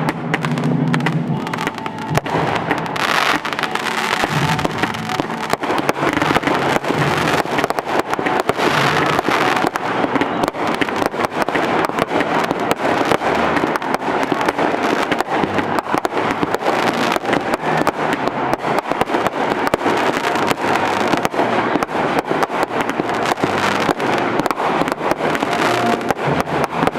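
Fireworks display: a dense, unbroken run of bangs and crackles.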